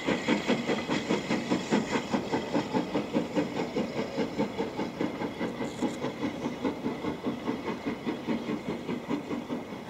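Steam locomotive working a train away, its exhaust beating in a rapid, even rhythm that slowly fades as it draws off.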